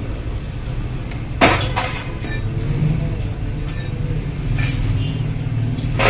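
Hand tools and engine parts clanking during a motorcycle engine teardown: one sharp, ringing metal clank about one and a half seconds in, a few lighter clicks, and another loud clank at the very end, over a steady low rumble.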